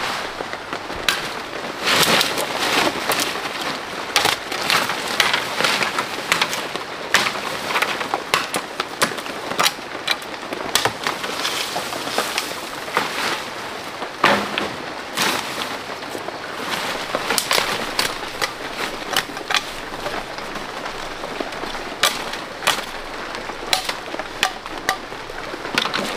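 Machete chopping dry fallen branches for firewood, with many irregular sharp cracks and snaps of dry wood over a constant crackle of dry undergrowth being trampled and pushed through.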